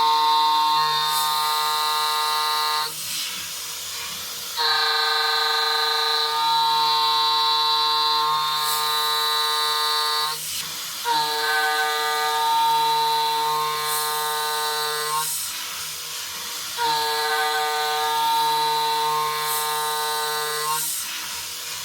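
An 8 mm three-flute end mill on a DIY CNC router cutting steel, making a steady ringing whine of several pitches at once: the tone of chatter. It comes in four passes of a few seconds each, dropping away briefly between them as the tool leaves the cut on the adaptive-clearing path.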